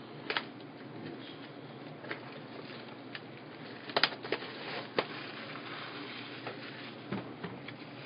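Handling and opening a box of trading cards: scattered taps, clicks and rustling of cardboard and pack wrappers, with the sharpest clicks about four and five seconds in.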